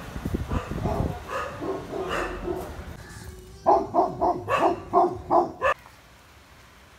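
A puppy barking: a quick run of about six short barks in two seconds, starting about halfway through and stopping sharply. Quieter, indistinct sounds come before the barks.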